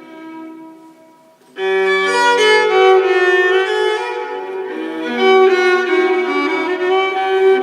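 Music with bowed strings: a violin melody over held notes, fading almost to nothing, then coming back in louder at about one and a half seconds.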